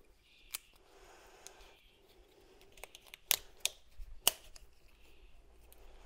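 Faint scattered sharp clicks and taps of small parts being handled and trimmed at a bench. A single click comes about half a second in, and a cluster follows between three and four and a half seconds in.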